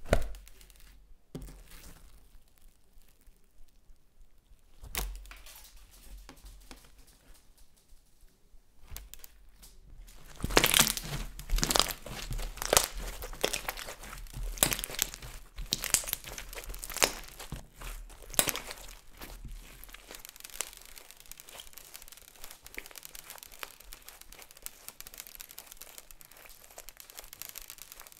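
Green slime full of small foam beads being kneaded and squeezed by hand, the beads crinkling and crackling. A run of louder, sharper crackles comes in the middle, and a steady fine crackle follows near the end.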